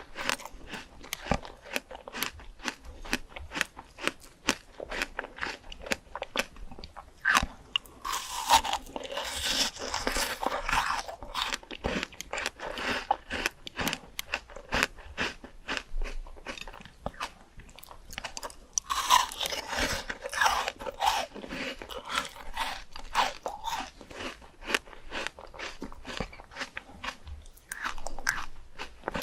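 A person biting and chewing crunchy fruit close to the microphone: a constant run of crisp crunches and wet chewing clicks. There are two louder, denser spells of biting, about a third of the way in and again about two-thirds in.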